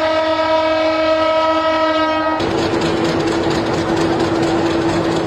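Locomotive horn sounding one long, steady blast. About two seconds in, the sound cuts abruptly to a moving train: a steady horn tone under loud running noise from the train.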